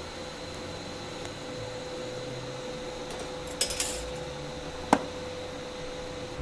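Light metallic clinks of small metal pieces being handled, a short cluster about three and a half seconds in and a single sharp click about a second later, over a steady hum with a faint high whine.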